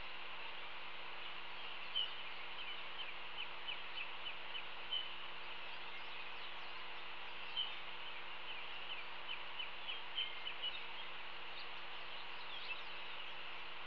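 Outdoor background of birds chirping at a distance: many short, high chirps over a steady hiss, with a few louder chirps every two or three seconds.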